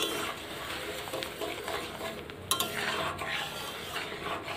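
A metal spoon stirring a spiced hog plum (amra) chutney mixture in a metal kadai, scraping and swishing against the pan, with two sharp clinks, the second about halfway through.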